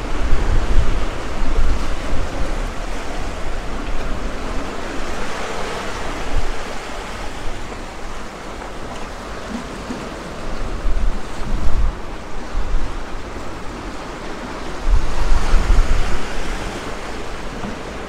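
Sea waves breaking and washing up on a sandy beach, the surf swelling about a third of the way in and again near the end. Wind buffets the microphone in gusts.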